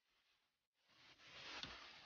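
Near silence: faint hiss with one light metallic click about one and a half seconds in, as a socket wrench is fitted onto a seat-mounting bolt.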